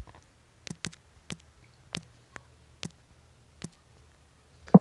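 Irregular clicks of typing on a smartphone's on-screen keyboard, about eight taps in all, the last one the loudest.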